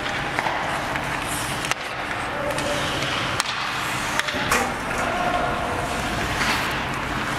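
Ice hockey in play: skate blades scraping the ice, with several sharp clacks of sticks on the puck and players calling out.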